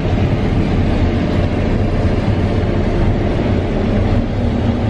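Case IH 8250 combine running while it harvests wheat, heard from inside the cab: a steady, even drone of the engine and threshing machinery with a constant low hum.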